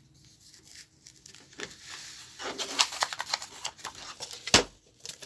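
A sheet of paper being handled and moved, rustling and crackling for a couple of seconds, with one sharp paper slap about four and a half seconds in that is the loudest sound.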